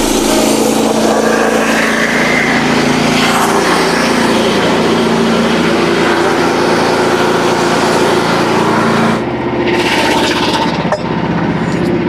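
Frontier OS27 portable band sawmill cutting a white oak log, its engine running steadily under load as the band blade works through the wood. About nine seconds in the blade comes out of the cut: the hiss of cutting drops away and the engine runs on.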